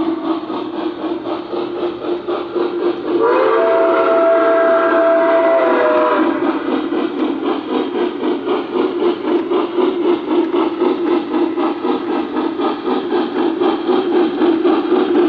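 A model steam locomotive's onboard sound system plays a steady chuffing. About three seconds in, a chime whistle sounds one long blast of several notes, lasting about three seconds. The chuffing grows louder near the end as the engine approaches.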